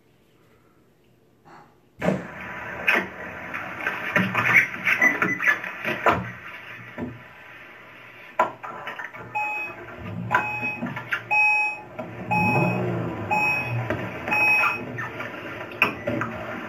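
A car-interior home video playing back through home-theatre speakers: handling and cabin noise with clicks starts suddenly about two seconds in. In the second half, a car's electronic warning chime beeps at a steady pace, about twice a second.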